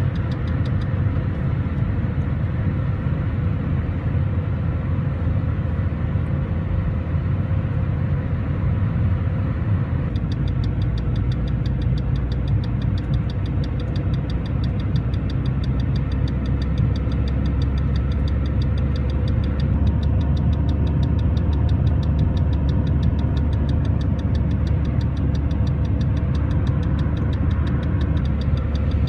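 Car driving at highway speed, heard from inside the cabin: a steady low engine and road rumble. From about ten seconds in, a fast, regular ticking runs over it.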